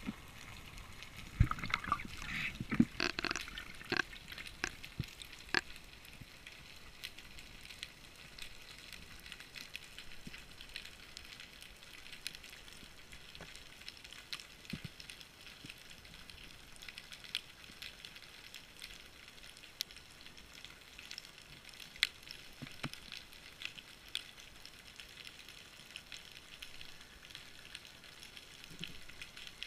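Underwater ambience in the sea: a faint crackling hiss with scattered sharp clicks, and a few louder knocks and clicks in the first several seconds.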